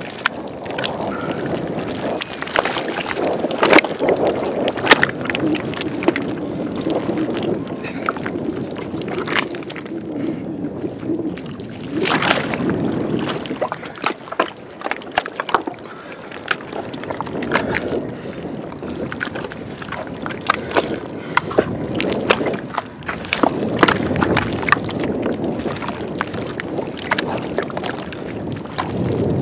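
Thick wet mud squelching and sucking as a person crawls and pushes through it on hands and knees, with irregular wet slaps and splashes.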